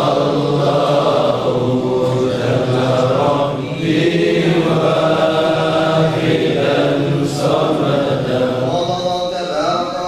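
A group of men's voices chanting together in a drawn-out melody, Sufi devotional chanting (dhikr) of a Qadiri circle, with a brief dip about four seconds in.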